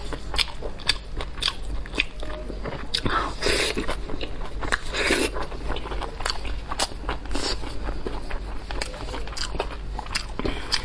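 Close-miked eating: wet smacking chewing and sharp clicks as gloved fingers tear saucy meat off the bone, with two longer, louder wet sounds a few seconds in.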